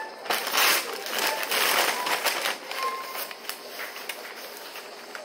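Paper food packaging rustling and crinkling close to the microphone, heaviest over the first few seconds and dying down near the end.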